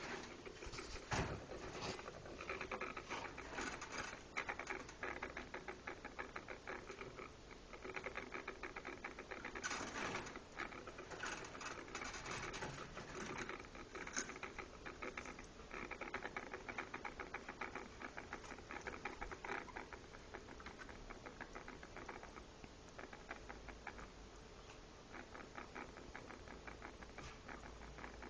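A small animal making long runs of rapid, fast-repeating chattering clicks, with a few short pauses between runs.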